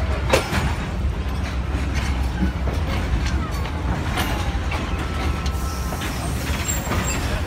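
Train carriage rolling slowly, with a steady low rumble and scattered rattles and clanks; a sharp knock about half a second in.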